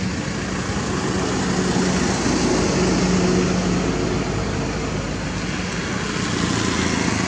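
Steady motor noise with a low hum, swelling a little about two to four seconds in.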